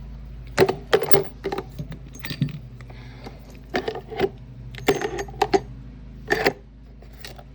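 Metal sockets and hand tools clinking and clattering as they are handled and set down in a toolbox: about ten sharp, irregular clinks and knocks.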